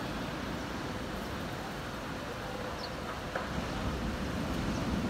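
Steady outdoor background noise of a wet town seafront, with no single clear source, and one short click a little past three seconds in.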